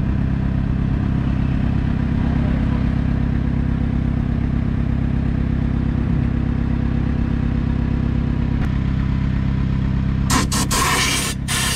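An engine idling steadily. Near the end, a loud rush of noise breaks in over it.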